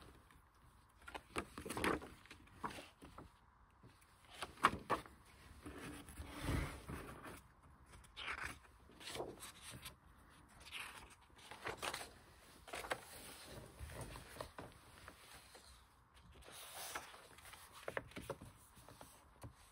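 Pages of an oversized hardcover art book being turned one after another, each turn a short swish and rustle of paper, roughly every one to two seconds.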